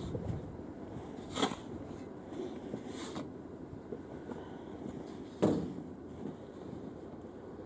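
Snow shovel working snow: two sharp scraping knocks about four seconds apart, with a fainter one between them, over a steady background rush.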